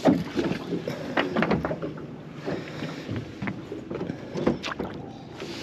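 Irregular knocks and bumps of gear and feet on a small fishing boat's deck, the loudest right at the start, over a steady rush of wind and water.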